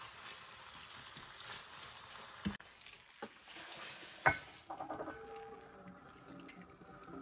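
Chicken pieces sizzling in oil in a wok while being stirred with a wooden spatula, stopping a little over two seconds in. About four seconds in comes a sharp metal clank as the wok is tipped over a metal strainer in the sink to drain off the juice the chicken has released.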